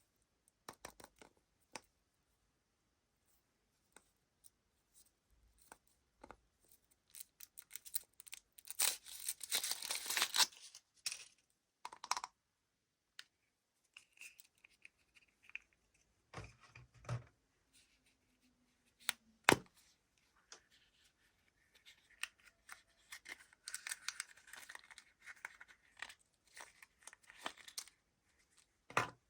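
Foil wrapper of a chocolate egg being torn and crinkled by hand, in short spells of rustling between scattered light clicks and taps. A single sharp click about twenty seconds in is the loudest sound.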